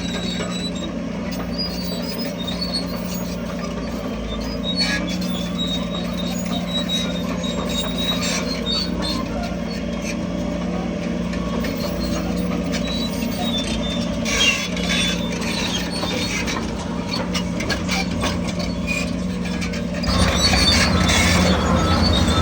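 Heavy construction machine's diesel engine running steadily, with scattered metallic clanks and squeaks; it gets louder near the end.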